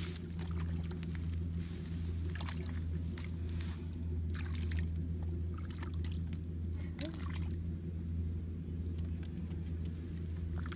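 Hands and feet sloshing and splashing in shallow muddy water in a few short bursts, over a steady low mechanical hum.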